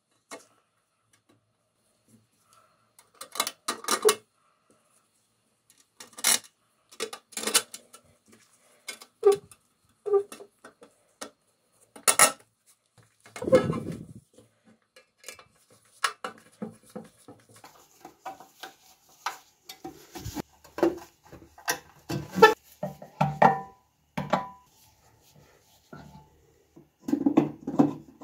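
Metal parts of a 1920s Siemens crank telephone clinking and knocking against its painted housing during reassembly: irregular sharp clicks and taps with short quiet gaps, busier in the second half.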